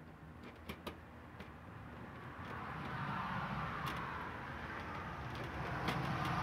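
Small clicks and taps of a screwdriver against the plastic base of a mini dome camera as its mounting screws are driven into a ceiling. A steady rushing noise with a low rumble swells in about two and a half seconds in and becomes the loudest sound.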